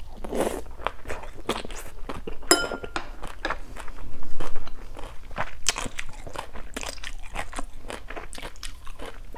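Close-miked chewing of fried rice-flour cake and pickled carrot: wet, crunchy mouth sounds made of many small clicks and crackles. About two and a half seconds in comes a short metallic clink, the spoon being set down on the plate.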